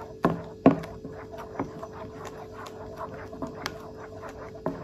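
A plastic paddle stirring a thick, soapy liquid in a stainless steel bowl: repeated swishing with light knocks and scrapes of the paddle against the bowl, two louder knocks near the start and another near the end, over a steady low hum.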